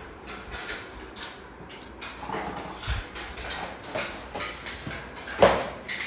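Young rose-ringed parakeet's claws tapping lightly on a tiled floor as it walks, with a loud sharp clatter about five and a half seconds in as it grabs onto its wire cage.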